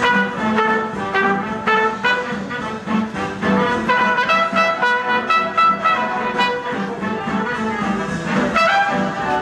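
Dance-band orchestra music led by trumpets and trombones, with a steady beat underneath.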